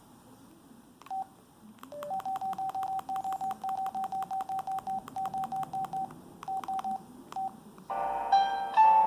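A cell phone ringtone made of short single-pitch electronic beeps, about five a second in uneven groups, from an LG Helix UX310's speaker. Near the end a different, fuller melodic ringtone starts.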